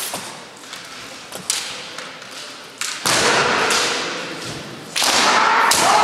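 A few sharp knocks, then kendo fencers' kiai shouts: one loud, drawn-out yell begins about three seconds in and fades, and a second one starts about five seconds in and is held to the end, as the fencers move into a strike.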